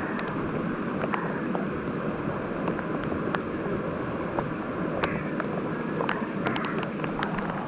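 Steady rush of a trout creek's flowing water, with scattered sharp ticks of raindrops hitting the camera.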